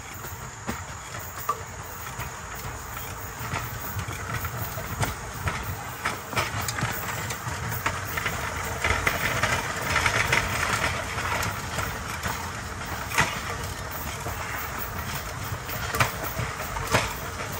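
A pedal rail bike's steel wheels rolling along old, overgrown railroad track: a steady rumble with irregular sharp clicks and knocks from the rails, growing louder and hissier for a few seconds around the middle.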